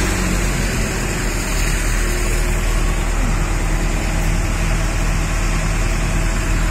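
A large engine idling steadily, with a constant low hum.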